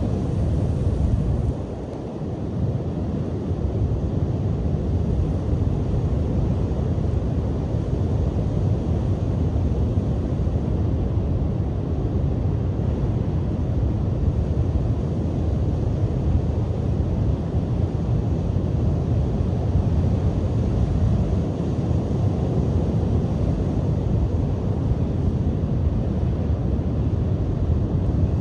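Strong wind rumbling on the microphone over the continuous roar of surf breaking on the beach, steady apart from a brief lull about two seconds in.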